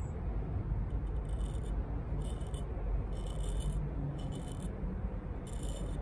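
Knife blade shaving hair off a forearm: five short, dry scraping strokes, each about half a second, over a steady low rumble. The edge takes the hair off, a sign of a sharp factory edge on the AEB-L steel blade.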